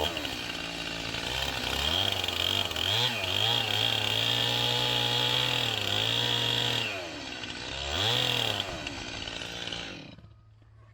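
Two-stroke chainsaw revved to full throttle and cutting wood with the tip of its bar. Its pitch dips briefly under load twice and picks up again. Near the end the saw throttles down and the sound fades away.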